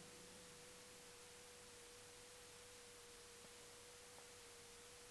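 Near silence: room tone with a faint, steady single-pitched whine held throughout.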